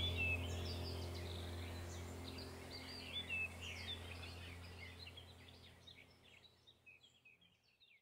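Baya weavers giving many quick, high chirps over a low steady hum; the whole sound fades out gradually over the last few seconds.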